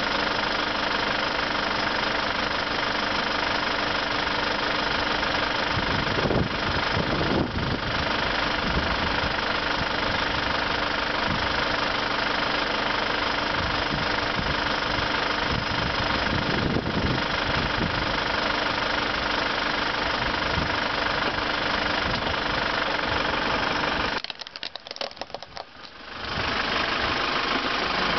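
Kia SUV's engine idling steadily close by, with a faint steady hum. Near the end the sound drops away for about two seconds, then resumes.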